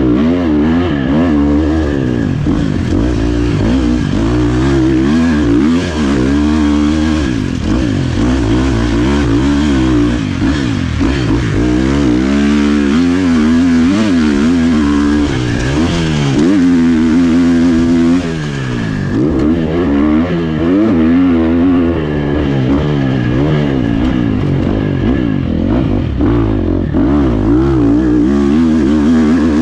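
Husqvarna FC 350 four-stroke single-cylinder dirt bike engine revving hard up and down, pitch climbing and dropping again and again as the rider works the throttle and shifts gears. It briefly backs off about two-thirds of the way through.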